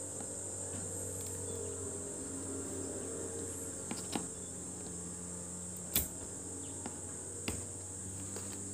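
Soldering iron desoldering a blown 400 V filter capacitor from a Bluetooth speaker's power-supply board. A steady high-pitched hiss sits over a low hum, with a few light clicks from the iron and board about four, six and seven and a half seconds in.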